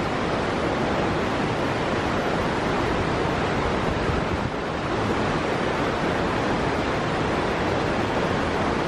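Taughannock Falls, a tall plunge waterfall, pouring into its pool: a loud, steady rush of falling water without a break.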